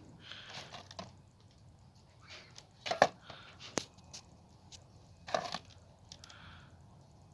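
Packaged parts being handled: scattered rustles and knocks, with sharp clicks about three seconds in and again just before four seconds, and a louder rustling knock about five and a half seconds in.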